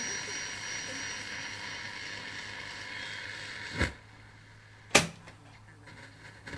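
1955 Siemens Schatulle H52 tube radio giving a steady static hiss from its speaker, then two sharp clicks of its piano-key pushbuttons about a second apart, the second louder; after the first click the hiss drops away, leaving a faint low hum.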